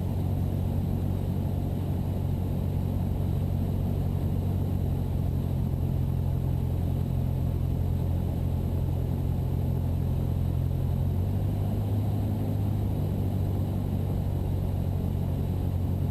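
Cessna 172 piston engine and propeller droning steadily in the cockpit, its pitch shifting slightly about eleven seconds in.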